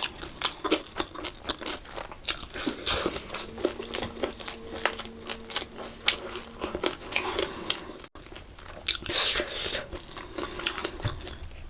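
Close-miked chewing of crunchy fried food, a steady run of crisp crunches and wet mouth clicks.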